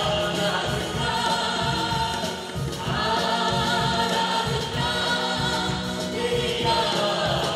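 A group of women and girls singing a gospel worship song together into microphones, with a hand drum keeping a steady beat underneath.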